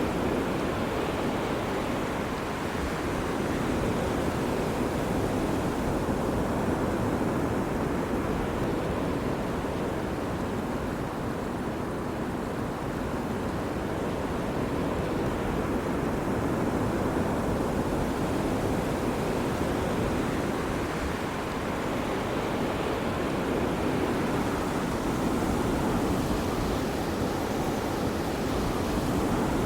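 Ocean surf washing onto a beach: a continuous rushing wash of breaking waves that slowly swells and eases in loudness every several seconds.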